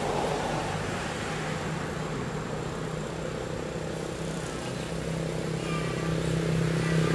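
A motor engine running as a steady drone, growing louder toward the end.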